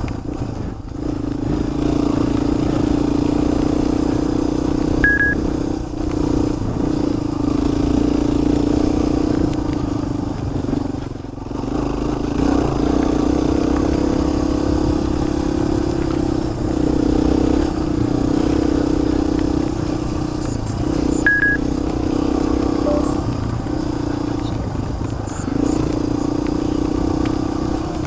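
Motorcycle engine running under way, its pitch shifting a little with the throttle. Two short high beeps, about 5 and 21 seconds in.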